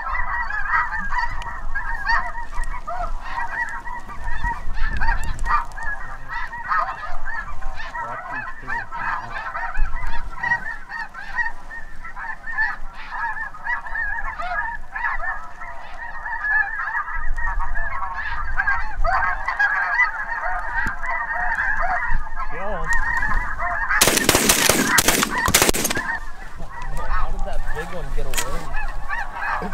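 A large flock of snow geese calling over the decoy spread, a dense constant clamour of honks. About 24 seconds in, a rapid volley of shotgun shots rings out over about two seconds, louder than the calling.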